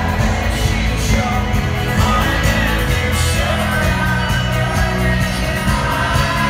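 Live folk-rock band playing loud music with a steady beat, heard from among the crowd in a large arena.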